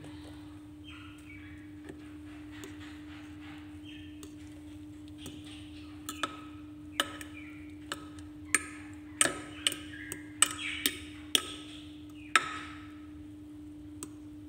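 A metal fork clinking and tapping against a glass baking dish as eggplant is pressed flat into beaten egg. There are about ten sharp clicks, mostly in the second half, with some soft scraping and squishing between them. A steady low hum runs underneath.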